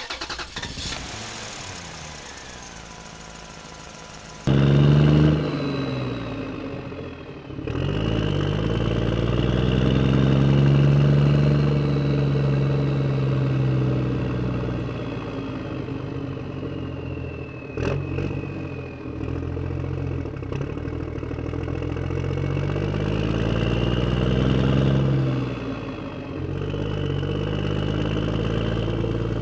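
Heavy construction-machine engine running and revving, its pitch rising and falling several times, with a thin high whine above it. It starts abruptly about four seconds in after a quieter stretch, and there is a single sharp click around the middle.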